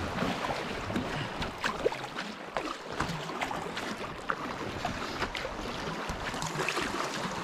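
Sea water lapping and splashing against a kayak hull on choppy water, in irregular small splashes, with wind on the microphone.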